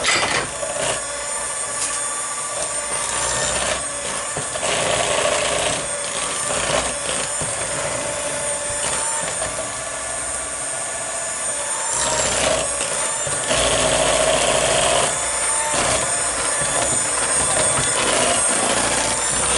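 Electric hand mixer running steadily, its beaters working through thick, soft butter in a batter bowl, with irregular knocks and shifts in the motor's load.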